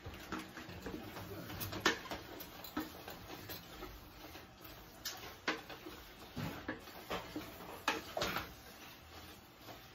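A spoon scraping and knocking against the inside of a stainless steel stock pot while ground beef is stirred as it browns. A handful of sharper clinks are scattered among quieter scraping.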